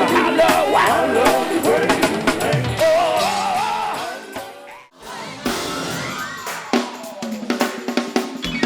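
Live gospel band with a wavering sung vocal line over drums; the music fades out about four seconds in, drops to a brief near-silence just before five seconds, then drums and band start up again.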